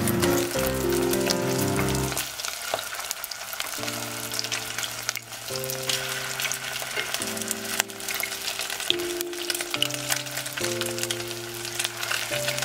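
Battered chicken pieces deep-frying in hot oil in a pot: a steady crackling sizzle with scattered sharp pops.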